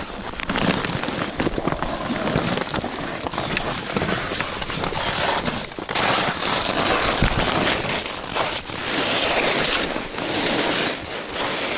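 Stiff tent fabric rustling and crinkling in repeated swells as an ice-fishing tent's insulated floor is unfolded and spread out by hand.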